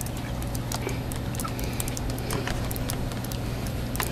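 Footsteps crunching in fresh snow about four inches deep: many light, irregular clicks over a steady low hum.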